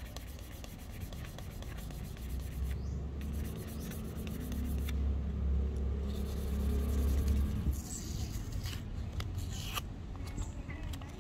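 Dry scraping and rubbing on wood, with a low rumble underneath that stops suddenly about two-thirds of the way in, followed by a few sharp clicks and taps.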